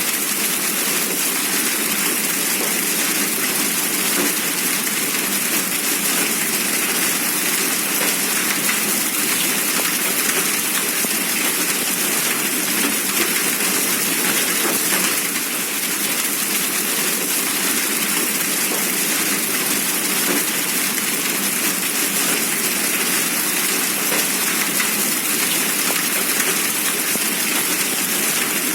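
Hail and rain falling steadily, a dense, unbroken patter of many small impacts.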